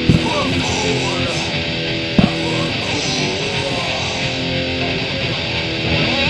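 Heavy metal music led by distorted electric guitar. There are two sharp accents, one just after the start and one about two seconds in.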